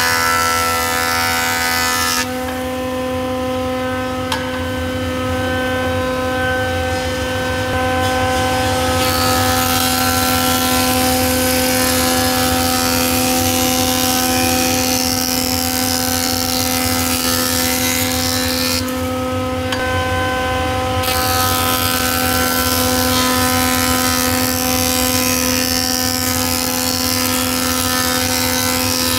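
Jointer running with a steady hum while an oak board is passed over its cutterhead, the cutting making a loud hiss. The hiss drops away about two seconds in and again near nineteen seconds, leaving the machine running without cutting, then returns.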